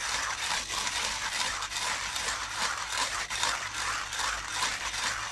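Manual burr coffee grinder grinding light-roast coffee beans on an espresso setting, a steady, dense grinding noise as the handle is cranked. The fine setting with this burr geometry makes it a harder grind that needs more force.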